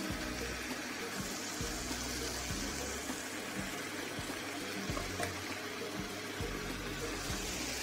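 Prawns in sambal spice paste sizzling in a frying pan: a steady hiss with a few faint ticks.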